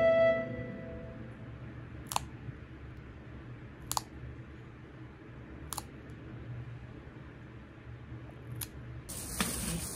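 Pet nail clippers snipping a cat's claws: four sharp clicks, spaced about two to three seconds apart. A held piano-like chord fades out in the first second, and a frying sizzle starts near the end.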